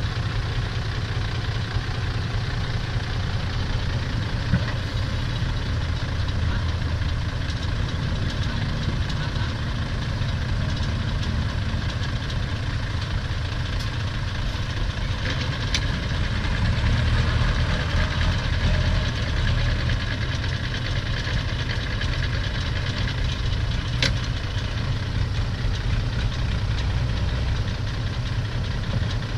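Diesel engines of a six-wheel dump truck and a Kubota tractor running steadily, the tractor pushing the mired truck from behind; a little louder about halfway through.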